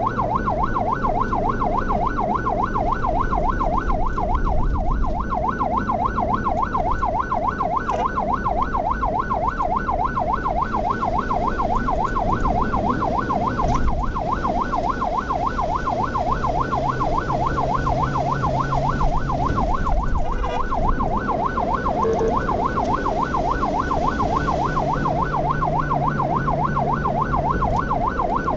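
Ambulance electronic siren in fast yelp mode, its pitch sweeping up and down about four times a second without a break, over steady engine and road noise: the ambulance is running on an emergency call.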